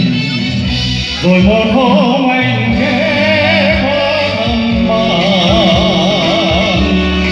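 A man singing into a microphone over instrumental accompaniment, amplified through a PA. His voice comes in about a second in and holds long notes with a wide vibrato.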